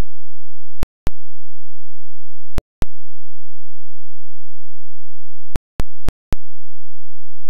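Empty soundtrack of a silent home-movie transfer: a faint steady electronic tone with sharp clicks that come in pairs, about eight in all.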